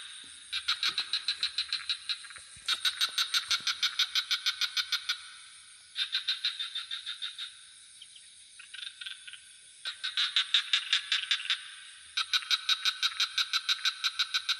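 Frogs calling in rapid pulsed trills, about ten pulses a second, in bouts of one to two and a half seconds with short pauses between, over a steady high-pitched insect drone.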